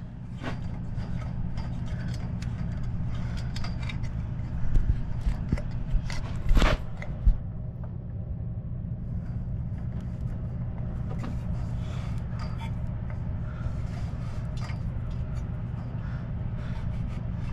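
Scattered knocks, scrapes and rubbing from hands-on work, over a steady low mechanical hum; the sharpest knocks come about five and six and a half seconds in.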